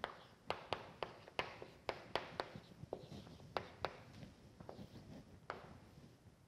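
Dry-erase marker writing on a whiteboard: about a dozen sharp, irregular taps as the tip strikes the board, thinning out near the end.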